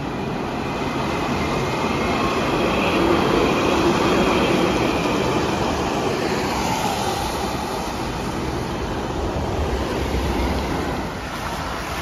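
Steel-wheeled light-rail tram passing by on its rails, growing louder to a peak a few seconds in and then fading as it goes, with a faint high whine in the first half.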